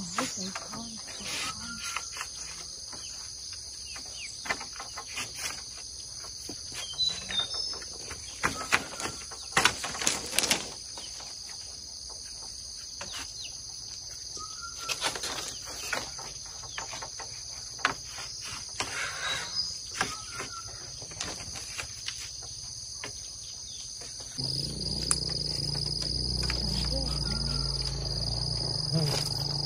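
A steady high insect chorus with scattered knocks, clicks and rustles of bamboo poles being handled and bound to a fence post. About 24 seconds in, a low rumble joins and the sound gets louder.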